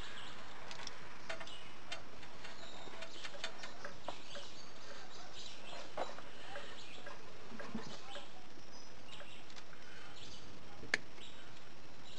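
Light, scattered clicks and taps of small parts being handled and fitted, with one sharper click near the end, over a steady background hiss. Faint bird chirps come through now and then.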